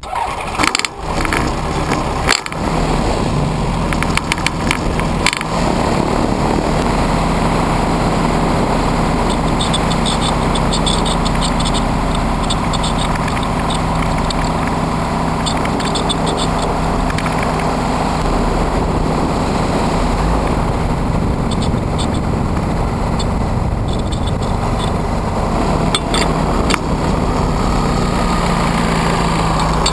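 Autogyro MTO Sport gyrocopter's engine running steadily as the aircraft taxis, picked up by a camera on the rotor blade. The sound comes up sharply at the start, with a few knocks in the first few seconds, then holds a steady drone.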